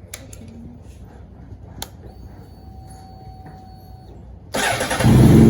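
Honda CBR954RR's inline-four engine being started: a click, a faint steady whine for about two seconds, then near the end the starter cranks and the engine catches and runs. The engine has fresh oil and is way quieter.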